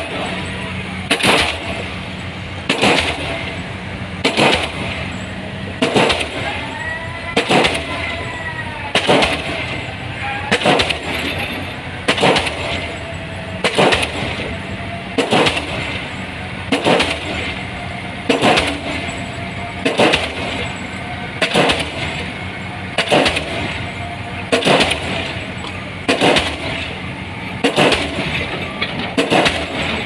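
Diesel pile hammer driving a concrete pile, striking in an even rhythm of about one blow every one and a half seconds, each a sharp bang. A steady low hum runs underneath.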